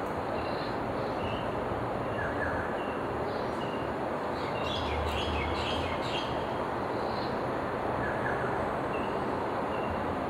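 Outdoor ambience: a steady hiss and low rumble of background noise, with small birds chirping every so often and a short flurry of birdsong about five seconds in.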